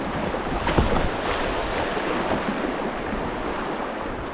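Rushing white water of a grade 2 river, a steady hiss of moving water, with a couple of brief splashes in the first second and wind buffeting the microphone.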